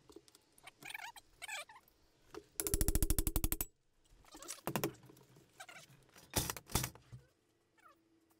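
Tool work on a trailer's door frame: a fast mechanical rattle for about a second, then a few sharp knocks, with birds chirping.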